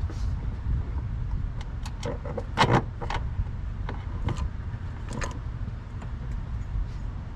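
Scattered clicks, taps and knocks of hands handling the accelerator cable and its fittings as it is fed through the firewall, with a louder clatter about two and a half seconds in, over a steady low hum.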